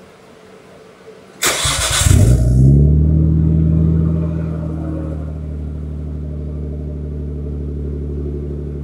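Nissan Skyline R34 GT-R's 2.6-litre twin-turbo inline-six starting through a Blitz Nur Spec R aftermarket exhaust. It fires with a sudden loud flare about a second and a half in, then settles into a steady idle that drops a little lower after a few seconds.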